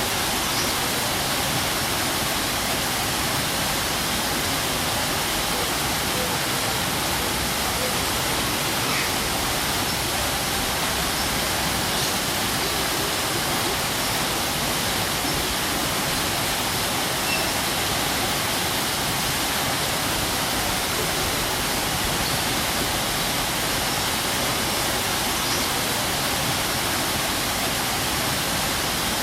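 Waterfall rushing in a steady, unbroken roar of falling water, even and constant throughout.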